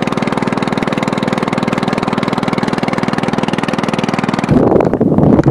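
Small boat engine running steadily with a fast, even beat. About four and a half seconds in it gives way to a louder, uneven rushing noise.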